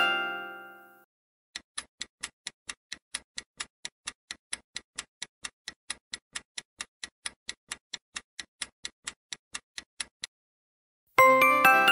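Quiz countdown timer sound effect: a clock ticking evenly, about three ticks a second. A chime rings out over the first second as the previous answer is revealed, and a quick run of chime notes starts near the end as the countdown runs out.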